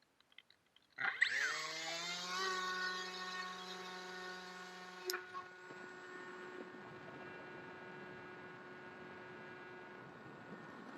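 Bixler 2 model plane's electric motor and propeller spinning up: a whine that rises in pitch for about a second and then holds steady. About four seconds later a sharp click, after which the whine fades under a steady rush of air noise.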